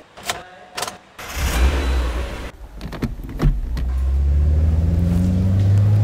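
Car ignition: two short clicks of the key, then the engine starts and runs, its pitch rising steadily over the last couple of seconds as it revs and pulls away.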